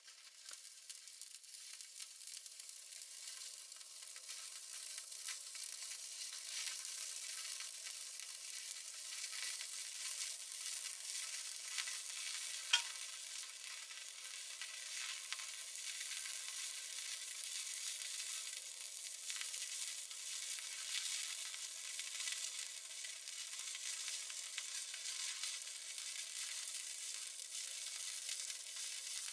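Stick-welding arc burning steadily with a continuous crackle as the electrode is run along a bead. It builds up over the first few seconds and has one sharp pop about halfway through.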